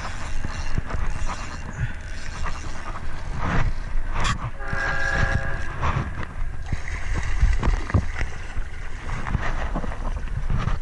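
A hooked salmon splashing at the water's edge as it is brought to the bank, over heavy rumbling handling and wind noise on a body-worn camera. A brief pitched tone sounds about five seconds in.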